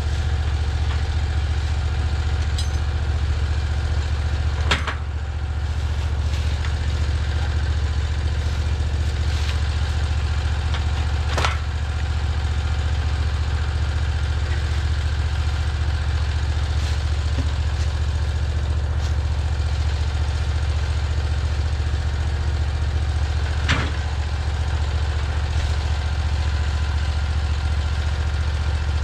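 Portable bandsaw sawmill's engine idling steadily, with three sharp knocks spread through, spaced several seconds apart.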